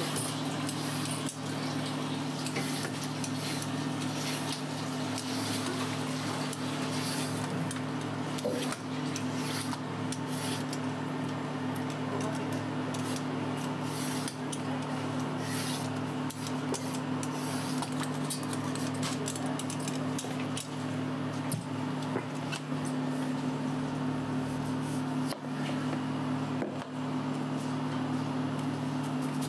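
Vegetable peeler scraping the skin off a daikon radish in repeated short strokes, over a steady low hum.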